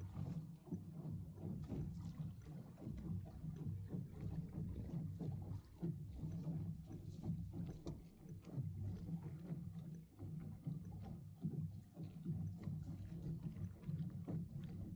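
Lake water lapping and splashing against the hull of a small Sunfish sailboat under way, a continuous uneven wash with many small irregular splashes.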